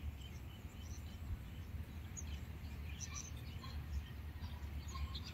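Faint outdoor ambience: a steady low rumble with scattered faint, high chirps.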